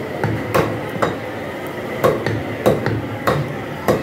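Meat cleavers chopping goat meat on wooden log chopping blocks: sharp, unevenly spaced strikes, about two a second.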